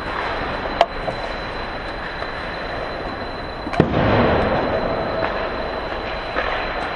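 Ice hockey play: skate blades scraping on the ice with sharp clacks of sticks and puck, the loudest a hard crack about four seconds in, followed by a swell of scraping.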